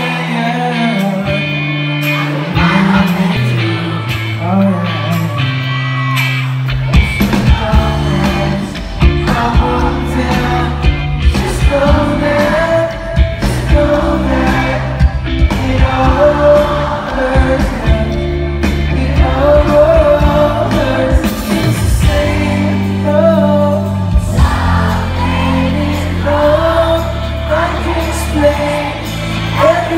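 Live band playing a song, with a male lead singer over electric guitar, heard from the audience; the bass and drums come in about seven seconds in.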